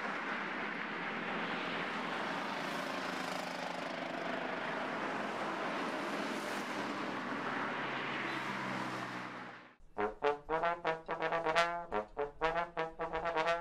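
Steady road traffic noise from passing cars; about ten seconds in it cuts off suddenly and brass music starts, playing short notes in quick succession.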